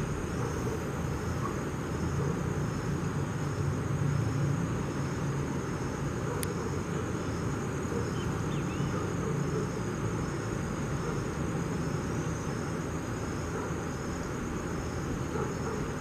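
Steady rush of river water flowing over rocks, with insects chirping high above it in an even, repeating pulse.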